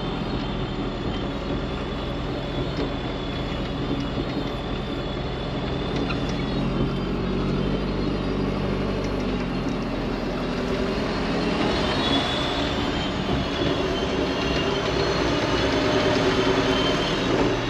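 Engine of a farm vehicle loaded with about two tonnes of lime running steadily, its hum changing pitch slightly about two-thirds of the way through.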